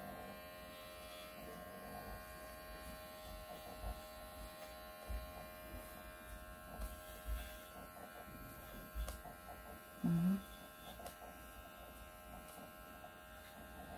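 Small cordless electric pet clipper running steadily with a faint, even buzz as it shaves the fur between a dog's paw pads. About ten seconds in there is a brief, louder low voiced sound.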